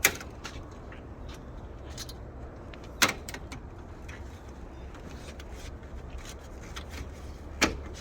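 Sharp plastic clicks and knocks of push clips being pried out of a car's front bumper and grille trim, with three loud snaps (at the start, about three seconds in and near the end) and lighter ticks between, over a low steady hum.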